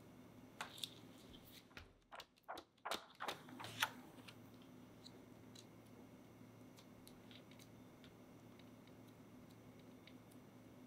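Thin plastic film crackling and clicking as it is handled and pressed down over piped white chocolate dots, flattening them into discs. A cluster of sharp clicks falls in the first four seconds, then only a few faint ticks over a low steady hum.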